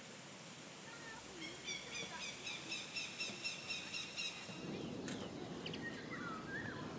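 A small bird calling, a quick run of repeated high notes at about five a second. After about four and a half seconds a low rushing noise takes over, with a few short chirps.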